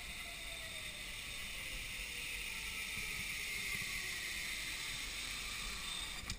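Zipline trolley running along the steel cable: a steady whirring hiss with a faint whine that falls in pitch as the rider slows toward the platform, ending in a sharp clack as the rider arrives near the end.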